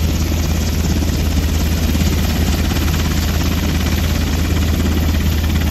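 Helicopter running on the ground before take-off, its turbine engines and turning rotor making a loud, steady low drone with a fast, even beat.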